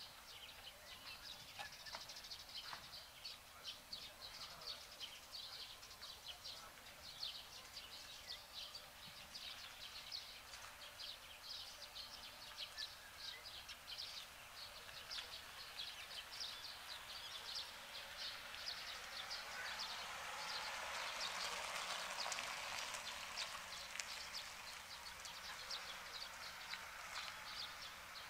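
Outdoor ambience of rapid, high-pitched chirping from small wildlife, growing fuller and louder about twenty seconds in.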